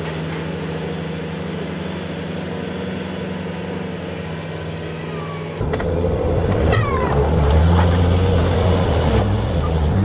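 Bobcat S160 and S250 skid steers' diesel engines running while the machines race: a steady engine drone, then from about halfway through a louder, rougher engine rumble as the loaders drive up close.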